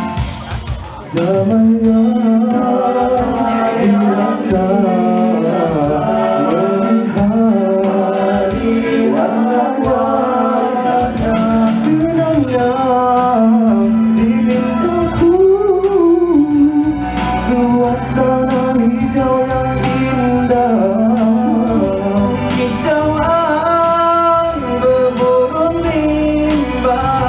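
A vocal group singing a nasyid song, holding wordless harmony lines over a steady low held note.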